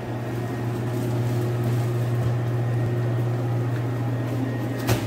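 Steady low machinery hum of a commercial kitchen's ventilation and refrigeration, with one sharp click near the end.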